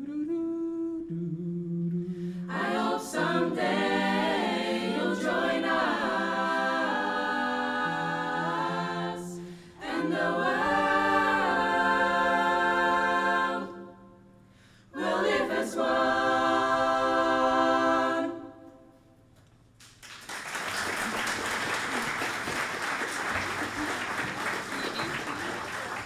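A cappella choir singing the closing phrases of a song in several parts, in three long phrases with brief breaths between them. The singing ends about three quarters of the way through, and the audience then applauds steadily.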